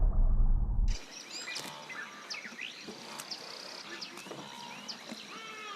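About a second of loud, low rumbling noise cuts off abruptly into outdoor ambience: several birds chirping and calling over a steady, high insect drone.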